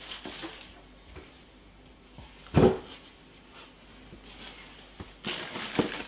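Cardboard box and packed cables being handled while unpacking: a few light knocks, one loud thump about two and a half seconds in, then rustling of packaging near the end.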